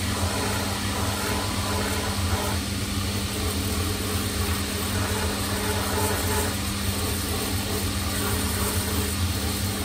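Shoe-repair finishing machine running steadily, its sanding drum roughening a leather sole to take off the original paint ready for contact adhesive; a constant motor hum under an even hiss of abrasive on leather.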